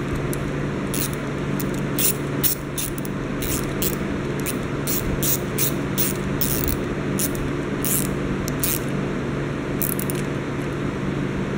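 Husky ratchet-drive screwdriver with a 6 mm socket clicking in short irregular runs as it tightens worm-drive hose clamps. A steady low hum runs underneath.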